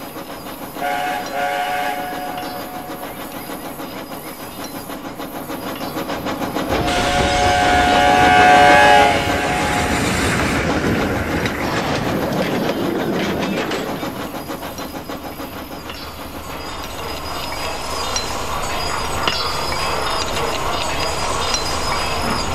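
Steam train: a whistle blows briefly about a second in, then again louder and longer around seven to nine seconds in, over the steady running of the train with its wheels clicking over the rail joints. The running swells up to the second whistle, eases off, then builds again near the end.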